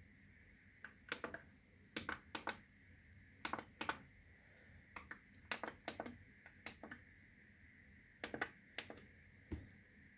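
Onkyo TX-NR808 AV receiver's front-panel input selector buttons clicking under a finger, pressed over and over at an irregular pace, often in quick pairs, as the inputs are stepped through one after another.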